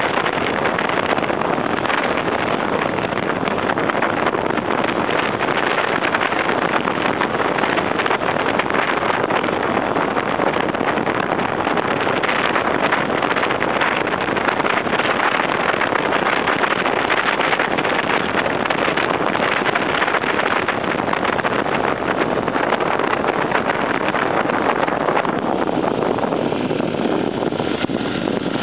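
Dirt-bike engine running under way, mixed with a steady rush of wind on the handlebar-mounted microphone. The rush thins a little near the end.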